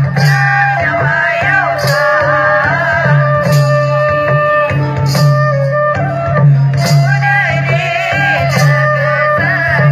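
Bodo folk dance music: a wavering melody over a steady low drone, with a sharp drum stroke about every second and a half or so.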